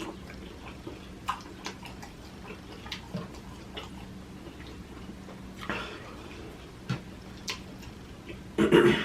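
Close-miked chewing with wet mouth clicks and lip smacks from a person eating seafood, over a faint steady hum, with a louder short mouth sound near the end.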